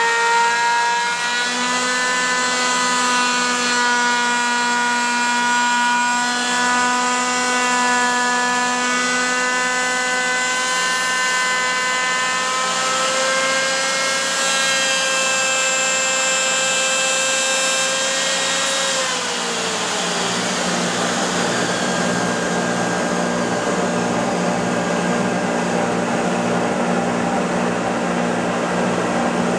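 Router spindle on a homemade CNC milling attachment for a woodturning lathe, running with a steady high whine, then winding down about two-thirds of the way through. A lower steady motor hum carries on after it stops.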